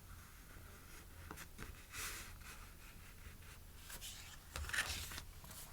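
Sticker sheets being handled and shuffled: faint paper rustling and sliding, with a couple of slightly louder rustles about two seconds in and near the end.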